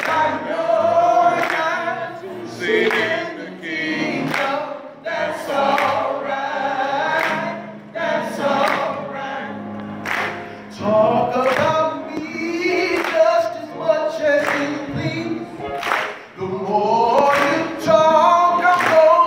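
Gospel song sung by a group of voices, with hands clapping together in time about once every second and a half.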